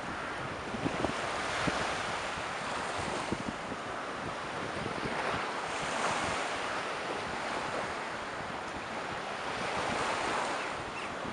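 Sea waves washing in a shallow bay with wind blowing over the microphone. The sound swells and eases every few seconds, with a few low wind thumps on the microphone in the first two seconds.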